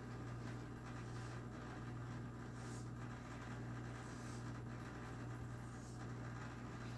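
A spatula scraping and stirring thick brownie batter and flour in a mixing bowl: faint, irregular soft scrapes. A steady low hum runs underneath and is louder than the scrapes.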